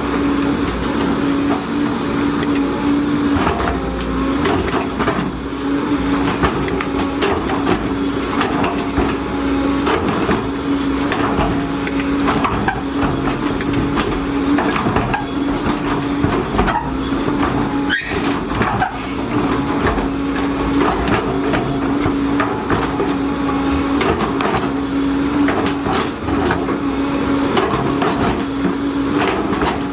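Volvo EC210DL tracked excavator working: the diesel engine and hydraulics run steadily with a constant droning tone, under frequent irregular knocks and clanks.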